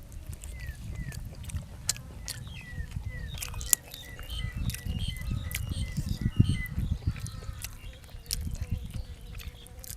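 Close-up chewing and mouth noises, with a bird calling in a rapid series of short, falling chirps behind them that stop about two-thirds of the way through.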